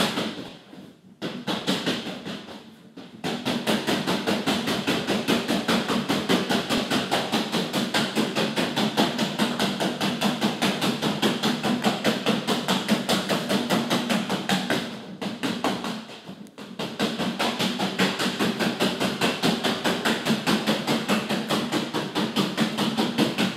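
Yellow rubber punch balloon being punched again and again by hand, giving a quick run of hollow thumps at about four to five a second. There are a few short breaks, the longest lasting over a second about two-thirds of the way through.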